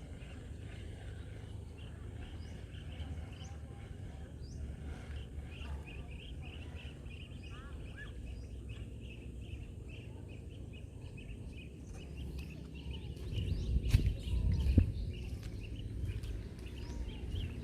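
Birds chirping repeatedly over a low rumble of wind on the microphone. A few thumps and knocks come about three-quarters of the way through.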